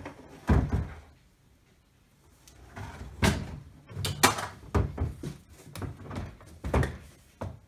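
Knocks and hollow thumps of the Park Tool BX-3 rolling toolbox's molded polypropylene case as it is tipped over and laid down on a wooden workbench. There is one knock just after the start, a short pause, then a run of bumps and thuds.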